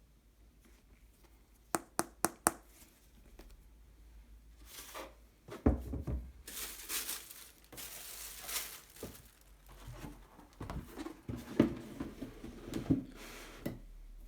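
Paper rustling and crinkling as a new pair of sneakers is unpacked from its box, with four quick clicks about two seconds in and scattered knocks and thuds from handling the box and shoes.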